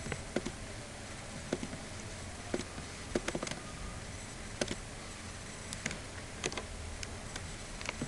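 Scattered single clicks of a computer mouse and keyboard keys, about a dozen at irregular intervals with a small cluster a little after three seconds in, over a low steady background hum.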